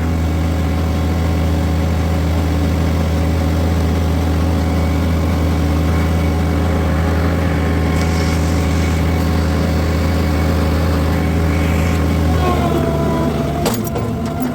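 Bobcat skid steer engine running hard and steadily under load while brush clearing. About twelve seconds in the engine note drops, and a few sharp knocks follow near the end.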